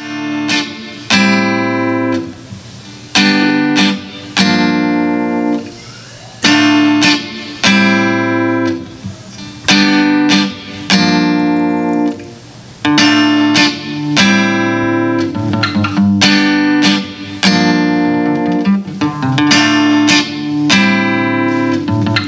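Acoustic guitar strumming chords in a repeating pattern, each chord struck sharply and left ringing, about one chord every one to two seconds.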